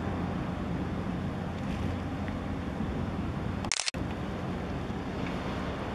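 Steady outdoor harbour ambience: wind buffeting the microphone over a low, even rumble. About two-thirds of the way through, the sound cuts out briefly with a sharp click at an edit.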